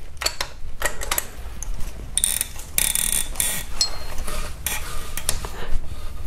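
Steel wrench clinking and scraping against a very tight AC compressor mounting bolt as it is worked loose: a run of sharp metal clicks with a few longer scraping bursts around the middle.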